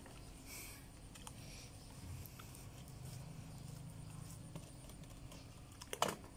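A baby monkey moving in a plastic basin of soapy water: faint splashes and light knocks, with one louder knock about six seconds in.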